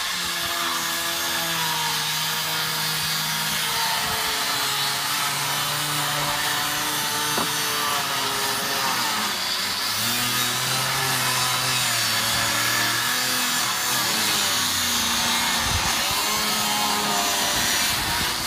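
Handheld cutoff tool with a small cutting disc running continuously as it slices across the tops of vinyl fence pickets. Its pitch sags and recovers again and again as the disc bites into the vinyl.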